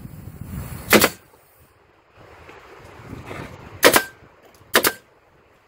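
Pneumatic nail gun driving nails into wooden battens: three sharp shots, one about a second in, then two close together near the end.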